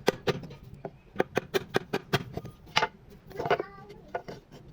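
A hand tool striking wood in a run of sharp, irregular knocks, with a brief voice a little past halfway.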